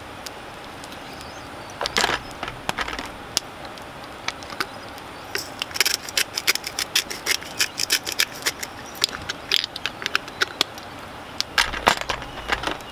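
A small seasoning container rattles and clicks as spices are sprinkled over raw chicken. There are quick runs of sharp clicks, densest in the middle, and handling knocks about two seconds in and near the end.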